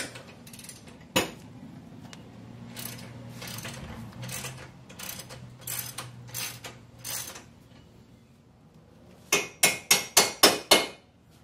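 Hand tools working on the 14 mm shock absorber mounting bolts of a utility vehicle: a sharp click about a second in, faint ratcheting clicks through the middle, then a quick run of about eight loud metallic clicks or knocks near the end.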